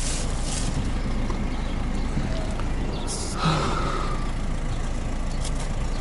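A plastic shopping bag rustles briefly at the start, over a steady low rumble. A short louder noise comes about three seconds in.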